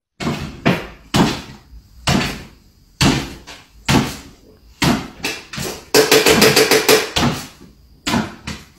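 Repeated sharp knocks and thumps, about one or two a second, with a quicker rattling run about six seconds in: a small dog jumping up and landing again and again on a wooden floor.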